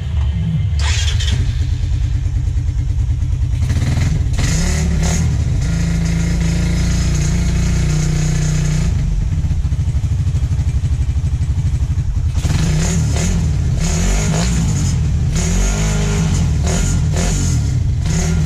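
Suzuki Raider 150 carburettor model's single-cylinder four-stroke engine, bored up to 167cc with a JVT 66 mm kit, running steadily and freshly started after the rebuild. The throttle is blipped, the revs rising and falling once about four seconds in and several times in the later part.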